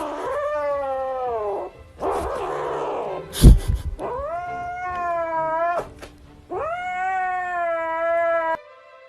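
A domestic cat giving three long, drawn-out yowls, each rising at the start and then holding. Between the first two yowls there is a noisy stretch, then a loud thump about three and a half seconds in.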